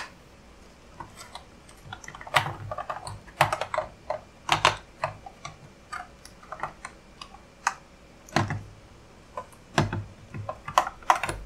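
Irregular plastic clicks and knocks as a C-size battery is worked into the battery compartment of a Davis Vantage Pro2 weather station console, needing extra effort to seat.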